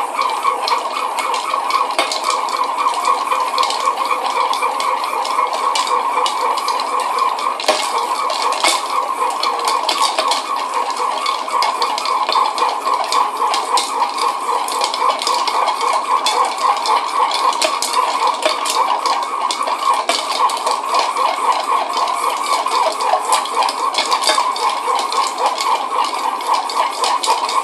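Ice cubes clinking and rattling against a glass mixing glass as a long bar spoon stirs a cocktail in a steady, fast rhythm. The stirring chills and dilutes the drink.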